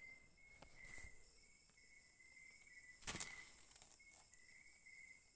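Faint crickets chirping in a steady pulsing pattern. About three seconds in comes a brief rustling smack of a hand striking the mosquito net to kill a mosquito, with a lighter rustle of the net about a second in.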